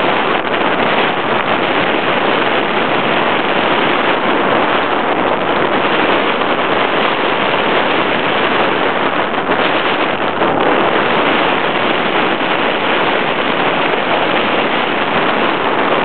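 Steady, loud rush of wind over the microphone of a camera mounted on a hang glider's control bar, from the airflow of gliding flight.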